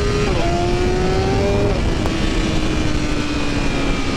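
2021 BMW S1000RR inline-four engine pulling hard under part throttle on a Brentune Stage 2 ECU flash: the revs climb, drop sharply with an upshift about a third of a second in, climb again and drop with a second upshift around a second and a half in, then hold and sag slowly.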